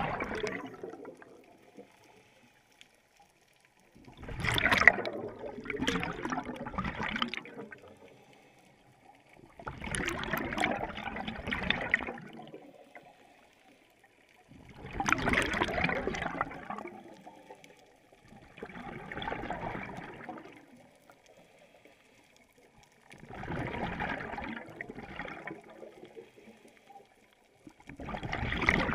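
Scuba regulator exhalations: rushes of bubbling noise, each a second or two long, about every four to five seconds with quiet gaps between, heard underwater through the camera's housing.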